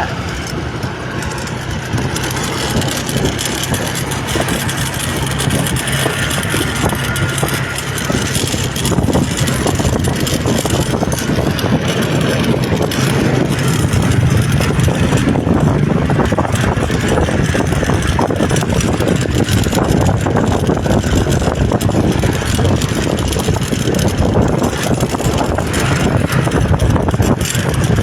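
Steady noise of a moving road vehicle: a low engine hum under rushing road and wind noise, growing a little louder after about eight seconds.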